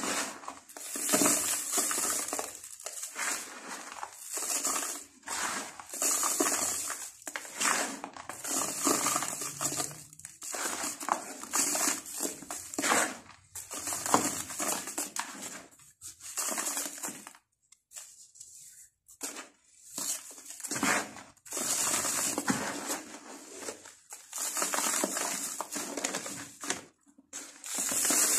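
Dry sand-cement dirt crumbled and rubbed between bare hands, a gritty crunching with a sandy hiss that comes in repeated bursts. There is a short quiet pause a little past halfway.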